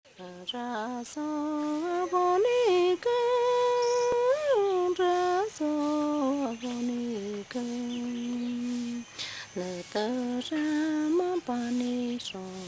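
A woman singing a Shipibo icaro, a sacred healing song, alone and unaccompanied. Her single voice holds long notes, wavers and glides in pitch, and pauses briefly between phrases.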